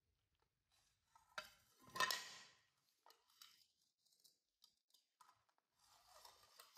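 Faint scrape and knock of a plastic tray being slid over a tiled floor, loudest about two seconds in, with small clicks and a softer scrape near the end.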